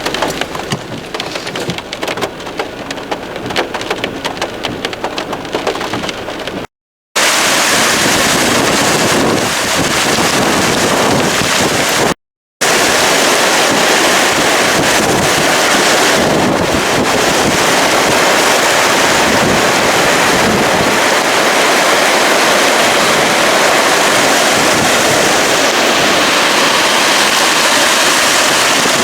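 The River Lune in flood: fast floodwater rushing in a loud, steady wash of noise. For the first few seconds there is a patter of rain and wind buffeting the microphone, and the sound drops out twice, briefly, at cuts.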